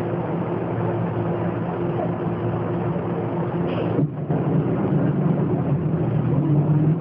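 Diesel engine of a Volkswagen 17.230 EOD bus running steadily under way. About four seconds in its sound drops off briefly, then comes back a little louder.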